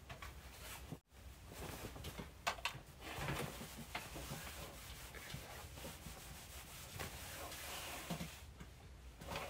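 Soft rubbing and shuffling of a clothes iron being pushed back and forth over fabric on an ironing board.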